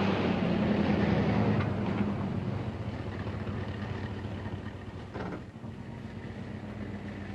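A Chevrolet pickup's 350 cubic-inch V8 runs steadily under load with a low hum, gradually fading. There is a faint brief knock about five seconds in.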